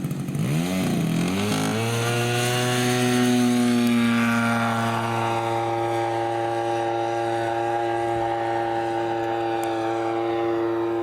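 Radio-controlled model airplane engine running. Its pitch dips briefly and climbs back up within the first two seconds as the throttle is worked, then holds a steady, high-revving drone.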